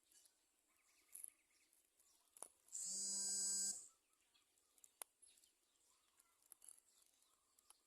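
A loud, even buzz lasting about a second near the middle, starting and stopping abruptly, over faint scattered chirps and ticks.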